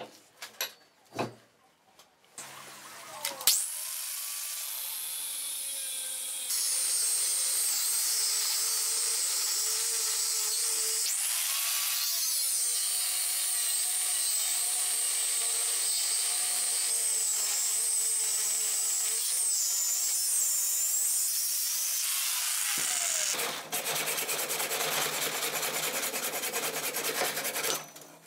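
A few knocks as the steel chain link is set in the vise, then an angle grinder with a cut-off disc starts and cuts into the rusty steel link, a steady high whine that grows louder as the disc bites, for about twenty seconds. Near the end the whine gives way to a rougher, rasping cutting noise until it stops.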